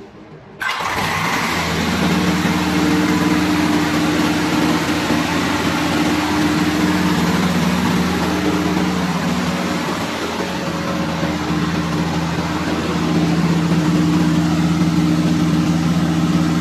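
MAN diesel engine started by a hand-released spring starter: a sudden loud onset about half a second in as it cranks and fires, then the engine running steadily at about 1800 rpm, a little louder near the end.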